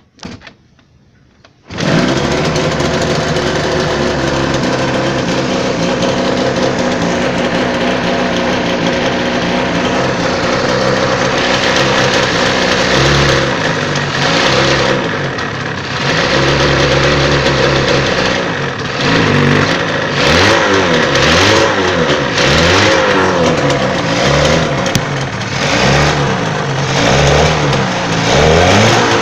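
Yamaha TZR250 (3MA) two-stroke parallel-twin engine starting a couple of seconds in, then idling and being revved in repeated short throttle blips that come thicker toward the end. It is running as a check after its oil pump was rebuilt.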